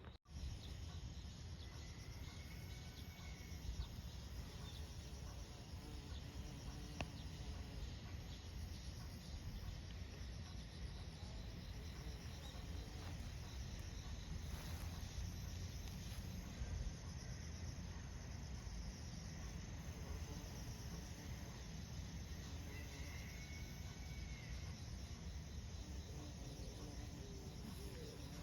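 A steady chorus of insects trilling, high-pitched and continuous, over a low rumble, with two short arcing calls from another animal, one near the start and one near the end.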